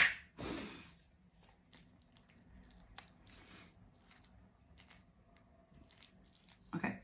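Wooden fork stirring and scooping through chili cheese fries in a cardboard tray: faint soft scrapes and clicks, after a brief louder rustle at the start.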